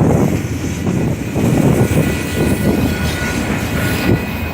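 Steady low rumble of a moving vehicle, with faint high steady tones above it.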